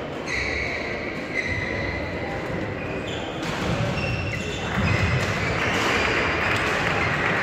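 Badminton hall sounds: short high squeaks of sports shoes on the court floor and a few sharp racket-on-shuttlecock hits, echoing in a large hall. A denser background hiss comes in about five seconds in.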